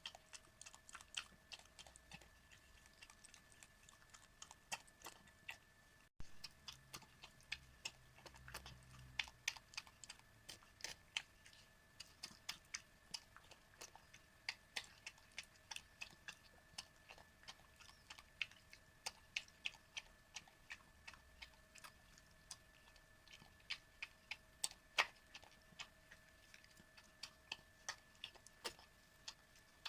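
An elderly miniature dachshund eating homemade soup and food: small wet clicks of lapping and chewing, irregular and several a second. A faint steady high hum lies underneath.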